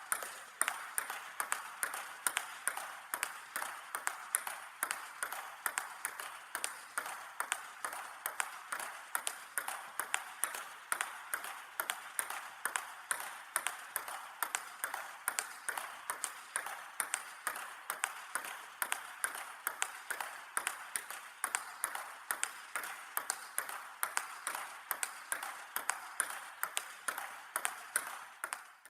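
Table tennis rally: a ping-pong ball clicking back and forth off paddles and table in a steady, even rhythm of about two to three hits a second.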